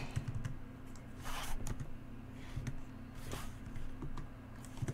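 Typing on a computer keyboard: a few scattered keystrokes, with two brief soft hisses about a second and three seconds in.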